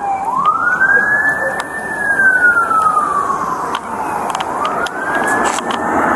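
Emergency vehicle siren on a slow wail: it rises quickly, falls slowly over a few seconds, and starts rising again near the end.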